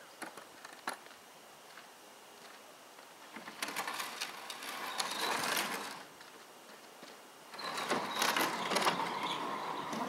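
Large wooden sliding barn doors being opened: a few clicks of the latch in the first second, then two spells of rolling, rattling rumble as the doors run along their track.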